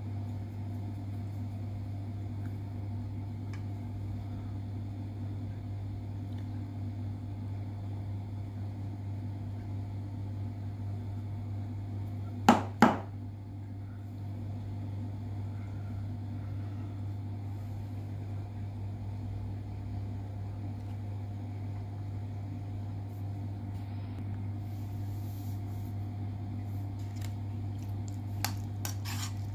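Steady low hum of room background, with two sharp knocks close together about twelve seconds in and a few light clicks near the end.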